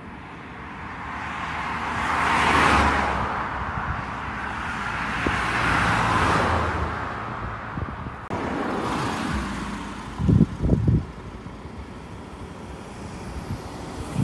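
Road traffic: three cars pass one after another, each swelling and fading. Later come two brief low thumps.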